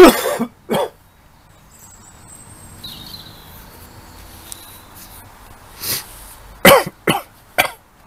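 A person coughing: two loud coughs at the start, then a weaker one and a quick run of three harsh coughs near the end. The coughing is put down to COVID.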